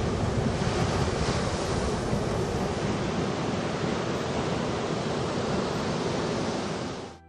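Ocean surf: rough waves breaking and washing onto a sandy shore in a steady, loud rush of noise that cuts off sharply near the end.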